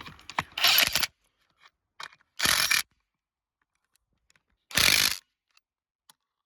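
RIDGID 18V brushless subcompact half-inch impact wrench hammering on lug nuts in three short bursts of about half a second each. In auto mode it keeps cutting out after each brief run.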